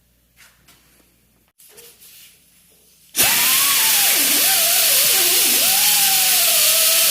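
A few faint clicks and knocks, then about three seconds in a handheld electric power tool starts up loud, with a strong hiss. Its motor whine dips and recovers in pitch several times as it is pressed into the work.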